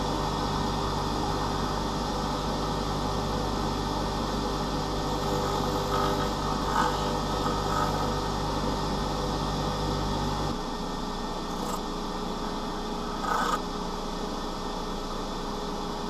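Bench grinder running while a steel block-plane blade is held against the stone wheel, grinding away its chipped, jagged cutting edge. A low hum underneath stops about ten seconds in.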